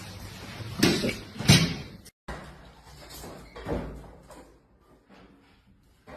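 An automatic door banging twice in quick succession, sharp loud knocks. The sound cuts off abruptly, followed by fainter knocks and bumps.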